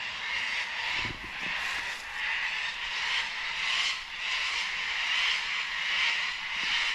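Many birds calling at once, a continuous high chatter that swells and fades every second or so.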